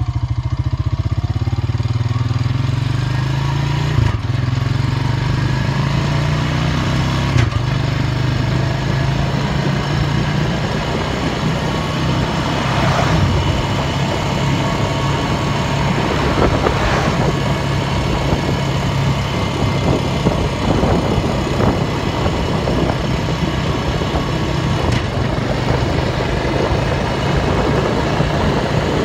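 Ford farm tractor's engine running steadily at road speed, climbing in pitch over the first few seconds as it gathers speed. Two sharp knocks come a few seconds apart early on.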